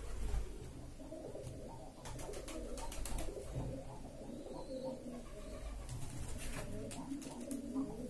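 Rose-ringed parakeet making a soft, low, continuous muttering and cooing chatter. Two clusters of sharp clicks break in, about two seconds in and again near the end.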